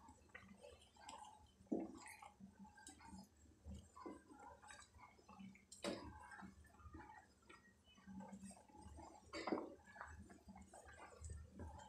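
Faint wet squelching and clicking as a spatula stirs thick, simmering barley porridge in milk in a kadai, with a few louder smacks about two, six and nine and a half seconds in.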